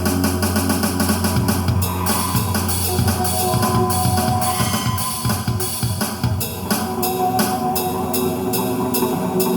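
Rock-style music with a drum kit keeping a steady beat over held guitar and bass chords that change every few seconds.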